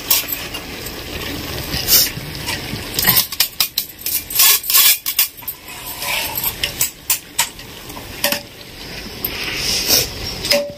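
Metal-on-metal clinks and knocks: a steel mesh strainer tapping against the rim of a metal cooking pot as par-boiled rice is tipped in, then a metal spatula scraping and clinking as the rice is spread in a layer over the chicken for dum biryani. The knocks come irregularly, in clusters.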